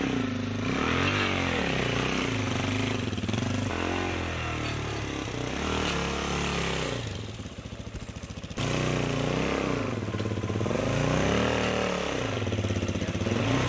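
Dirt bike engine ridden slowly, the revs rising and falling over and over as the throttle is blipped to balance the bike over rough ground. It goes quieter for a moment a little past halfway, then picks up again.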